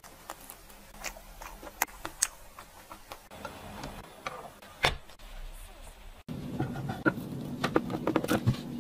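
Small clicks and taps of a metal spoon scooping cream cake from a clear plastic dessert box, then plastic being handled, with one sharp click just before five seconds in as a clear lid goes on. About six seconds in, the sound cuts to a louder stretch of rubbing and clicking over a low steady hum.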